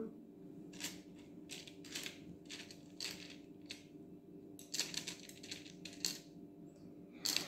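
Small plastic beads clicking and rattling against a clear plastic bead-kit case as it is handled, in a string of light, irregular clicks with a louder one near the end.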